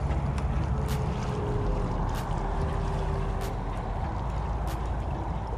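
Steady wind rumble on the microphone over small waves lapping a rocky shoreline, with a sharp tick repeating about every second and a quarter.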